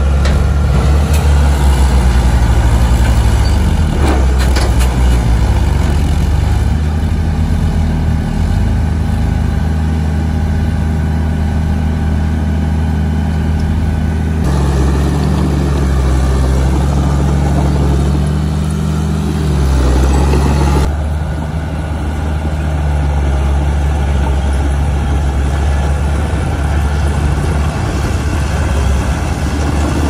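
Diesel engines of heavy road-building machinery (a bulldozer and trucks) running steadily under work, their pitch stepping up and down now and then. The engine sound changes abruptly about halfway through and again about two-thirds through.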